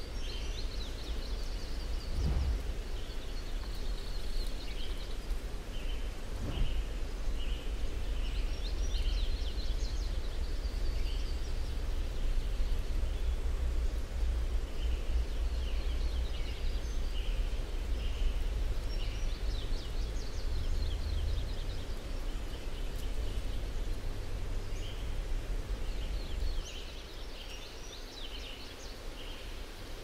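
Outdoor ambience: small birds chirping in short repeated phrases over a low rumble, which drops away near the end.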